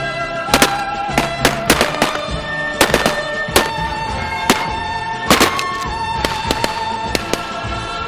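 Background music with a held, sliding melody, overlaid by a string of sharp, irregularly spaced bangs, several in quick pairs.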